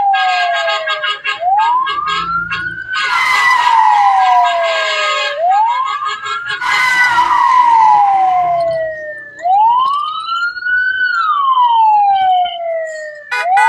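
Wailing siren, each wail climbing quickly and sliding slowly back down, repeating about every four seconds. Two bursts of hiss come over it, about three and seven seconds in.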